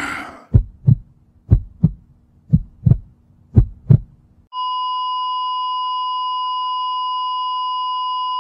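Sound-effect heartbeat, four double thumps about one a second, followed about halfway through by a steady high beep that holds on unbroken, like a heart monitor's flatline tone.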